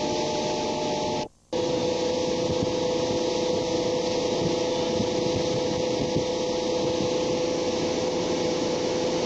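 Motorboat engine running steadily at towing speed, with a steady engine tone under the rush of wind and water. The sound cuts out briefly just over a second in.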